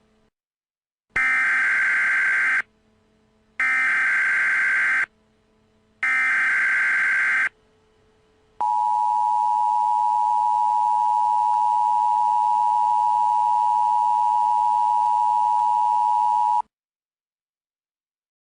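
Emergency Alert System tones: three harsh SAME header data bursts, each about a second and a half long with short gaps between, then the steady two-tone EAS attention signal for about eight seconds, which cuts off sharply. Together they mark the start of a new alert.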